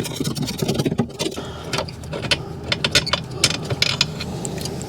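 Hand tool clicking and scraping on metal as a bolt with a threaded stud end is worked out of an engine's front accessory bracket: a run of short, irregular metallic clicks.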